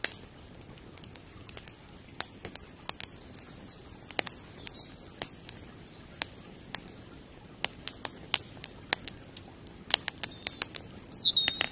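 Birds chirping now and then, with a warbling run of chirps about a third of the way in and another near the end. Sharp crackling clicks are scattered throughout over a soft steady hiss.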